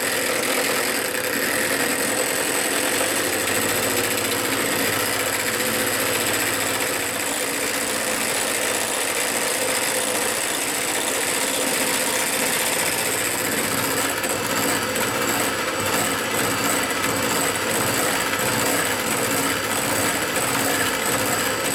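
Electric hand mixer running steadily, its two beaters whipping egg whites to a foam in a bowl.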